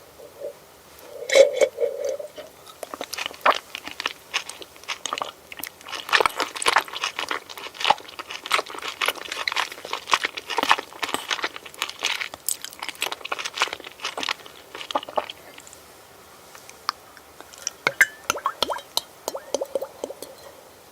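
Close-up crunchy chewing of food: a loud crunch about a second and a half in, then a dense run of crisp crunches for around twelve seconds that grows sparse near the end.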